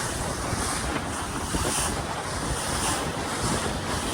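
Wind buffeting the microphone on a moving speedboat, with the rush of water past the hull underneath: a steady, dense rushing noise with a rumbling low end.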